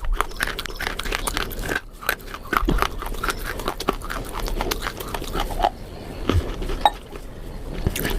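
A person chewing and biting food close to the microphone: many short crisp crunches and crackles with wet mouth sounds.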